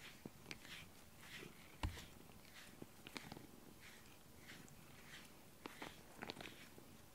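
Faint strokes of a pink rubber grooming brush through a cat's fur, repeating about twice a second, with small clicks and a single low thump about two seconds in.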